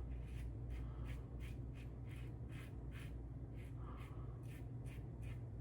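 Faint, quick scratchy strokes of a stainless steel safety razor across lathered stubble, about three a second, over a low steady hum.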